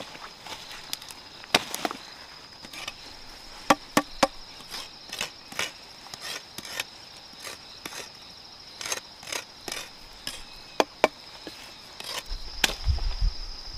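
Irregular sharp chopping knocks, one every half second or so at the busiest, over a steady high-pitched drone of crickets or similar insects. A low rumble comes in near the end.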